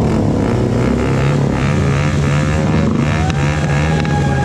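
Motorcycle engines running at a steady pitch. A thin steady high tone joins about three seconds in.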